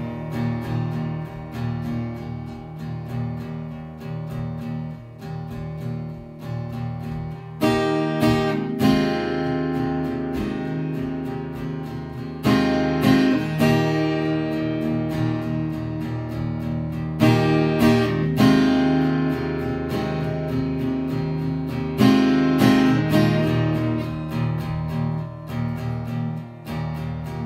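Acoustic guitar strummed through a song's instrumental introduction, with no singing, a fresh louder chord coming about every five seconds.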